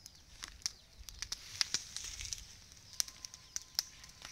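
Dry grass and stalks burning in a small smoke fire, crackling with sharp, irregular pops over a soft hiss.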